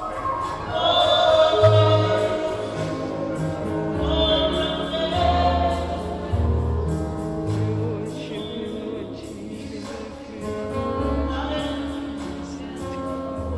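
Gospel worship music: a choir singing sustained phrases over a steady bass line.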